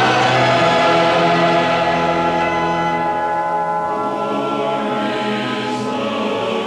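Choir singing sustained, slowly changing chords as background music.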